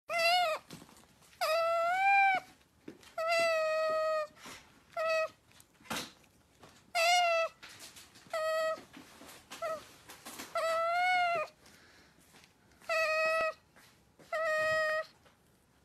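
Pet otter giving repeated high-pitched squeaking calls, about nine of them, each lasting from a fraction of a second to about a second, some rising and falling slightly in pitch.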